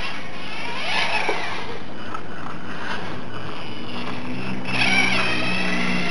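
Small electric motor and gears of a 1/32-scale Mitsuwa Sonic RC monster truck whining as it drives, the pitch rising and falling with throttle. It is loudest about five seconds in, as the truck passes close by.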